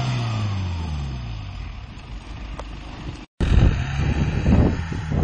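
Off-road vehicle's engine running, its pitch dropping and fading over the first two seconds. After a sudden cut about three seconds in, a louder engine comes in with irregular low thumps and knocks.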